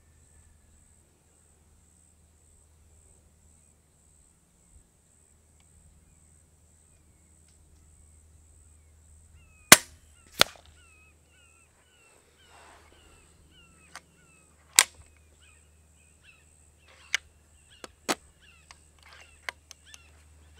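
FX Dreamline .22 regulated PCP air rifle firing a single shot, a sharp crack about halfway through, with a second, quieter crack under a second later. Several smaller clicks follow, while birds chirp repeatedly over a steady high insect drone.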